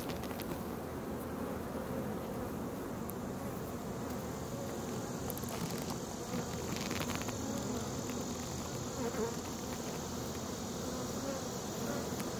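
Honeybees buzzing steadily around an opened hive.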